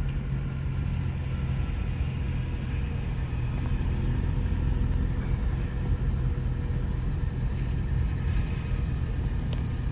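Steady low rumble of a car on the move: an even engine hum with road noise.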